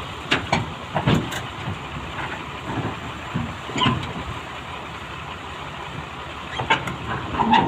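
Kobelco excavator working: a steady machine running noise with irregular metallic clanks and knocks, the loudest about a second in, near four seconds and near the end.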